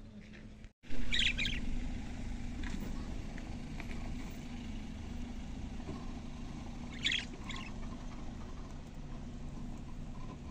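Budgerigars chirping in short bursts, one just after a second in and another around seven seconds, over a steady low hum.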